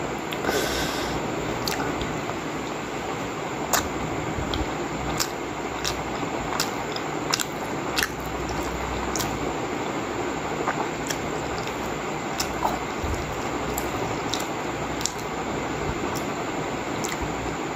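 Pork momo dumplings being chewed close to the microphone: soft, wet mouth clicks and smacks at irregular spacing, roughly one a second, over a steady hiss.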